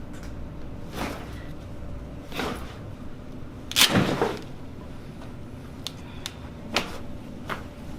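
A chiropractic adjustment: a handful of sharp cracks and thuds, the loudest and longest about four seconds in, with smaller ones around one, two and a half and seven seconds in.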